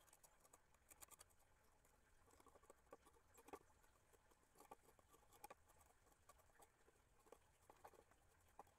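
Near silence with faint, scattered small clicks and taps at irregular intervals.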